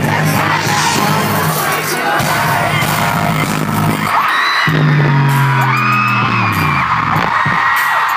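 Live pop concert music over an arena sound system, heard from within the crowd, with fans screaming and whooping. A held bass note breaks off about halfway through and gives way to a deep, falling synth sweep.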